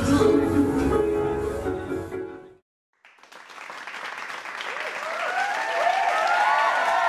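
Music fades out, and after a brief silent gap crowd noise fades in: clapping and many overlapping voices.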